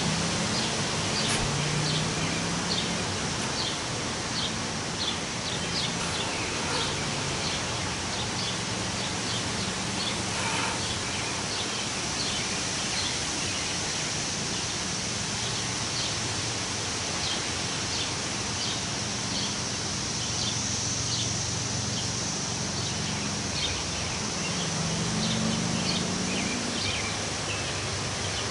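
Wind rustling through the leaves of forest trees, with small birds chirping in short, repeated calls throughout.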